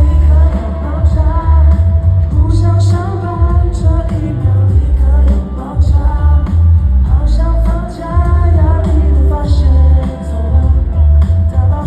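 A live pop song: vocals sung over a loud backing track with a heavy bass.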